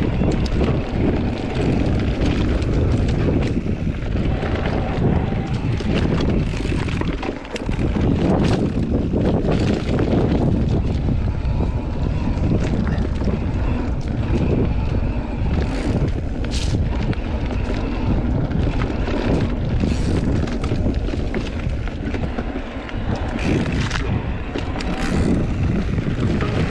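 Heavy wind buffeting the microphone of a moving camera, with frequent short knocks and rattles mixed in.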